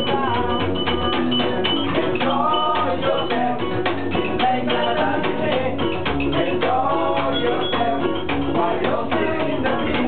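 Live small-band music: ukulele, archtop electric guitar and upright double bass playing a ska cover at a steady beat, with a man singing.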